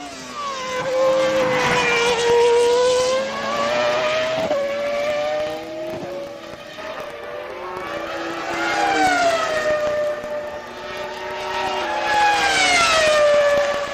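Jaguar Cosworth V10 Formula 1 engine running at high revs as the car laps the circuit, heard from trackside. The high engine note repeatedly climbs and drops in pitch, growing louder and fading several times as the car comes and goes.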